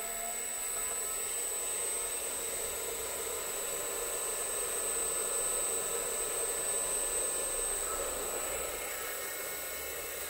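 Three-phase Baldor induction motor running unloaded on a variable frequency drive during its first bench test: a steady whir with a high-pitched whine above it.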